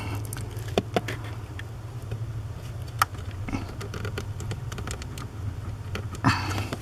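Scattered small plastic clicks and taps of fingers squeezing the locking tabs of the accelerator pedal sensor's electrical plug and working to pull it free. The plug is stubborn. A steady low hum runs underneath.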